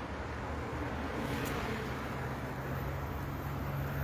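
Steady outdoor background noise with a low hum, like distant road traffic.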